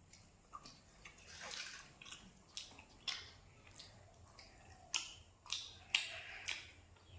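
Close-up eating sounds of someone chewing crispy fried pig tail: irregular wet smacks and clicks, a dozen or so, the loudest a little past the middle.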